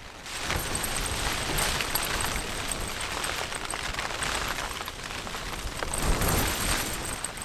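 Storm wind buffeting the tent in heavy gusts, loudest about six seconds in.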